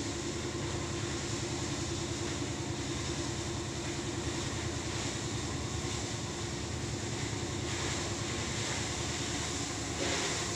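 A steady low droning rumble with hiss, its hiss briefly louder near the end.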